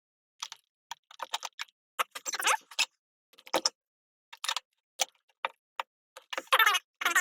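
Irregular clicks, taps and short rattles of a wheel nut, tool and wheel being handled on a radio-controlled truck's wheel hub, with a couple of longer rattling scrapes about two seconds in and near the end.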